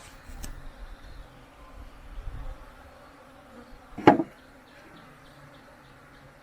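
Bees buzzing with a faint steady hum, and a brief loud knock about four seconds in.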